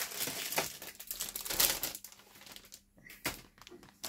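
Crinkling of the thin plastic bags holding a model kit's sprues as they are handled. The rustle is loudest in the first two seconds, then eases off with one more brief crackle near the end.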